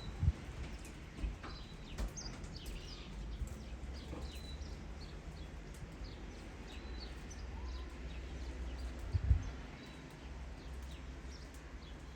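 Small birds chirping repeatedly in short calls over a low rumble, with a sharp thump just after the start and another about nine seconds in.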